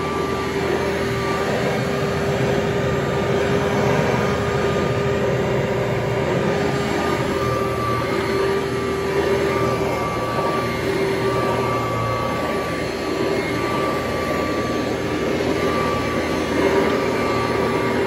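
Kirby Heritage upright vacuum cleaner running as it is pushed over a rug: a steady motor-and-fan whine over a constant rush of air.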